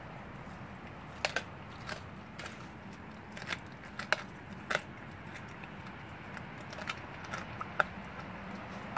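Blue Bay Shepherd dog chewing a raw rabbit rib cage, its teeth cracking the bones in sharp, irregular crunches. The loudest crunches come about four seconds in and near the end.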